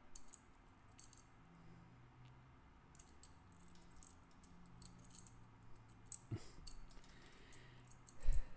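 Faint light clicks and clinks of a steel cam chain and cam sprocket being handled and fitted on a motorcycle engine's cylinder head. There is a dull thump about six seconds in and a louder knock near the end.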